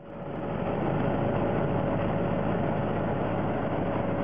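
A combine harvester's engine running steadily, with a steady mid-pitched whine over the engine noise; it fades in at the start.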